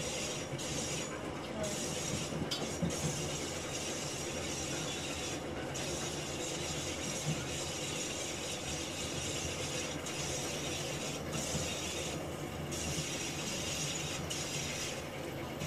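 Riding noise inside a moving railway carriage: a steady rumble of wheels on rail, with the coach rattling and a few sharp knocks.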